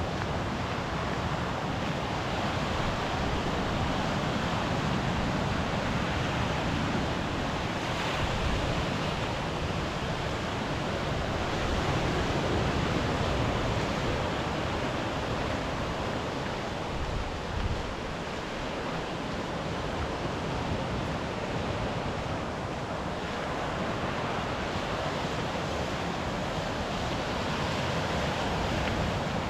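Sea surf washing steadily onto the shore, swelling and easing, with wind on the microphone.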